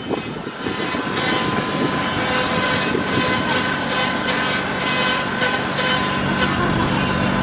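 A steady machine hum with a constant whine, under a busy clatter of background noise.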